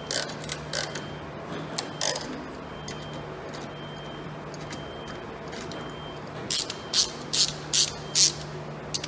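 Hand rivet-nut setting tool being worked to set threaded inserts in a panel: a few short mechanical clicks early on, then a quick run of about five louder strokes near the end.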